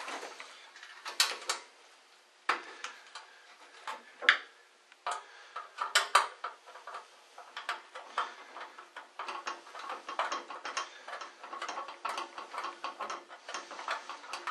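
Small metallic clicks, knocks and scrapes as a metal reflector shade is fitted onto a high bay light fixture and its screws are handled. A few sharper knocks come in the first half, then from about eight seconds a quick, even run of small clicks and scrapes as the shade's screws are worked in.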